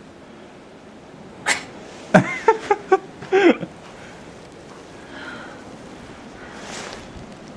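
A sharp breathy gasp, then a quick run of five short pitched cries that bend up and down in pitch over about a second and a half, against steady wind noise. Near the end there is a second, softer breathy burst.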